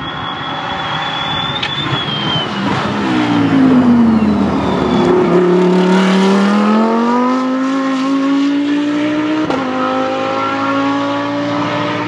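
Lamborghini Huracán GT3 race car's V10 engine: its note falls as the car brakes into the corner, then rises steadily as it accelerates out. About nine and a half seconds in there is one quick upshift, and the pitch climbs again.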